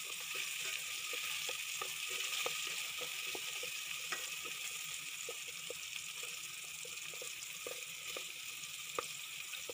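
Garlic, onion and tomato sizzling in hot oil in a metal pot, with a steady hiss. A wooden spatula scrapes and taps the pot bottom a few times a second as they are stirred.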